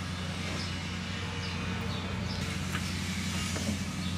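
Steady low mechanical hum at an even level, with a few faint taps.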